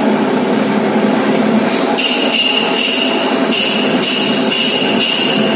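Metal lathe running steadily while a single-point tool cuts a workpiece held off-centre for eccentric turning. From about two seconds in, several short bursts of high metallic ringing come over the machine noise.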